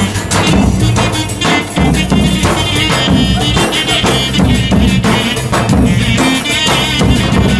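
Loud folk dance music with a steady beat.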